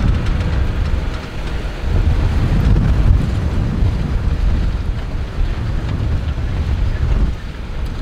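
Strong wind buffeting the microphone, a loud low rumble rising and falling in gusts, with a tractor running underneath it.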